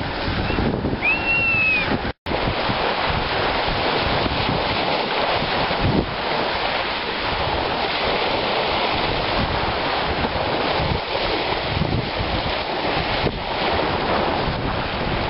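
Wind buffeting the microphone over small waves washing onto a shingle beach, a steady rushing noise. A short high call sounds about a second in, and the sound cuts out for an instant just after two seconds.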